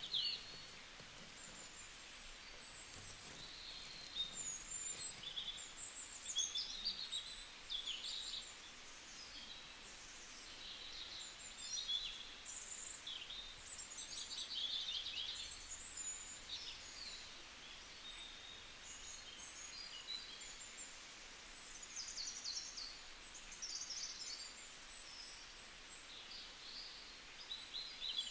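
Birds chirping faintly: many short, high calls one after another, over a low background hiss.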